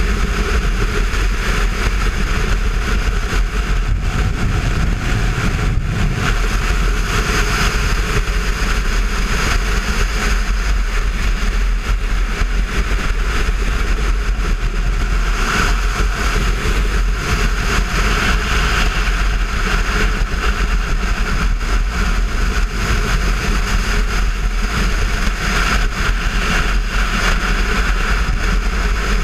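Steady wind rush on the camera microphone from a motorcycle ridden at road speed, with the Kawasaki Versys 650's parallel-twin engine running underneath.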